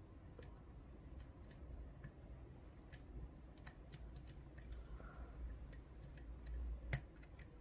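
Faint, irregular metallic ticks of a hook pick probing and lifting the pin stacks inside a GeGe rim cylinder held under tension, with one slightly louder click about seven seconds in. A low steady hum sits beneath.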